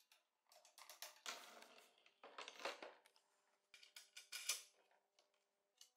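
Faint handling noise: short clicks and scrapes as a bolt and small wooden parts are fitted against a job site table saw's metal frame, in a few scattered bursts.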